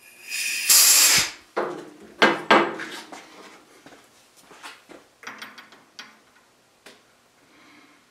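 Tools and metal parts being handled: a loud scraping noise for about a second, then a string of irregular clunks and clicks that grow fainter and sparser.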